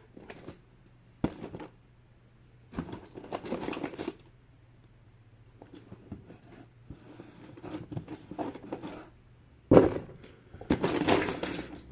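Plastic fidget toys clattering and rattling in bursts as they are rummaged through in a storage drawer. There is a sharp knock about a second in and a louder one near the end.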